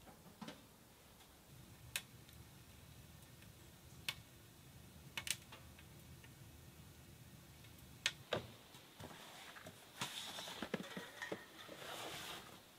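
Wood fire burning in a camp stove, crackling faintly with single sharp pops a second or two apart. Near the end comes a busier stretch of small cracks and rustling.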